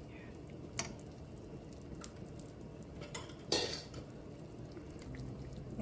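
A metal skimmer clinks against a stainless steel stockpot while it lifts pieces out of the boiling broth, over the steady bubbling of the pot. There are a few light knocks, and a louder clatter about three and a half seconds in.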